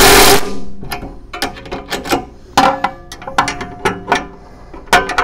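Cordless impact wrench running briefly to drive a nut tight on the hose reel's stack-kit bracket, followed by a run of irregular metallic clicks and rattles as the tool and socket work against the bracket.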